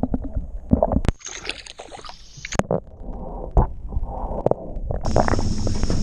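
Muffled gurgling and sloshing water with scattered knocks, heard through an action camera's microphone held underwater. About five seconds in the camera comes out of the water and a steady open-air hiss takes over.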